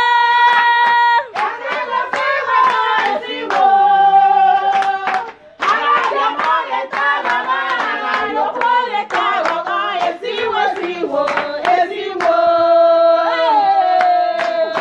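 People singing together with hands clapping along; long held notes ring out near the start, around four seconds in, and again near the end, over scattered claps.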